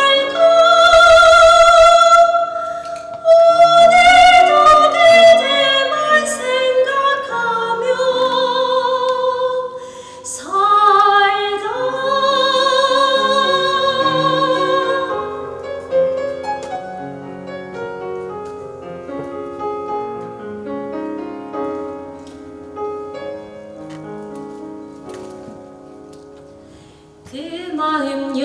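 A high female voice singing in operatic style with strong vibrato over piano accompaniment. About halfway through the voice stops and the piano carries on alone, more softly, until the voice comes back near the end.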